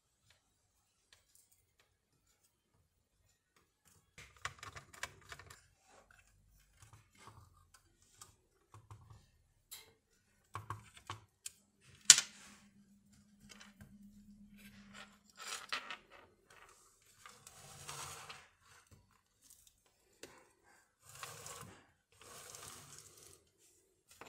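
Handling sounds from an opened answering machine as its circuit board is worked loose and lifted out of the plastic case: scattered clicks, scrapes and rustles of board and plastic, with one sharp loud snap about twelve seconds in and a low hum for a few seconds after it.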